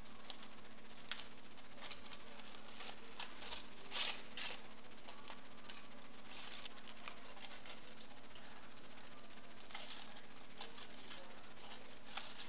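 Aluminium foil crinkling and crackling in irregular bursts as a foil packet is pulled open by hand and with a fork, over a steady hiss. The loudest crinkle comes about four seconds in.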